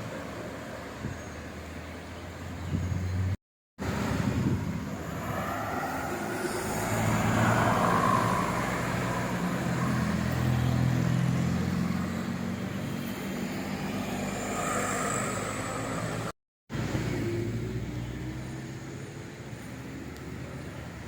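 Road traffic: large vehicles' engines running as they pass close by, the sound swelling and fading, broken twice by a moment of dead silence.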